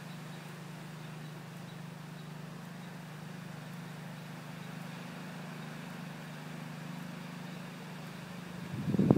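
A steady low hum, like a distant running motor, over faint outdoor background noise. Just before the end comes a brief loud rumble on the microphone.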